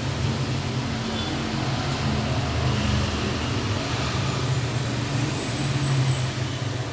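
A steady low hum over an even hiss, with no distinct events.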